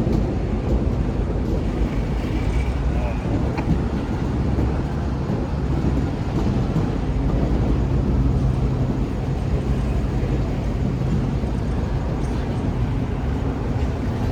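An engine running with a steady low rumble, with a brief high tone about two seconds in.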